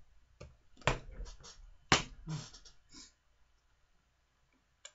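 Close handling noise: a handful of sharp clicks and knocks, the two loudest about a second apart, then a couple of seconds of near quiet and one last click.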